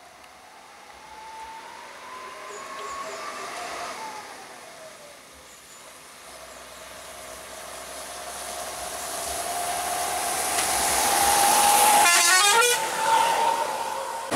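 A vehicle horn sounds while its pitch rises and falls slowly, and it grows louder over the seconds. About twelve seconds in it breaks into a rapid warbling trill, the loudest part.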